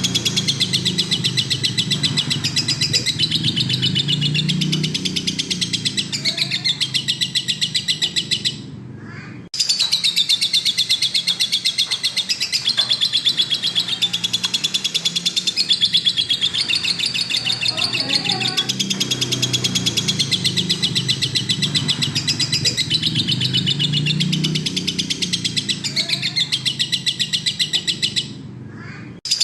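Lovebird in full song: a long, fast, continuous chatter of high chirps and trills, broken by a short pause about nine seconds in and again near the end.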